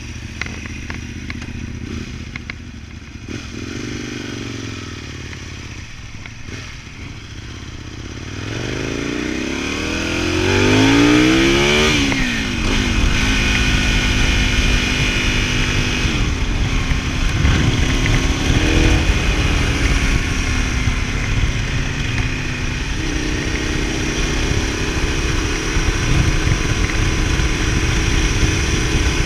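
Ducati Multistrada 1000DS air-cooled L-twin engine idling, then pulling away about eight seconds in, with the revs rising until a gear change at about twelve seconds. The bike then rides on steadily with wind rushing over the helmet-mounted or bike-mounted microphone.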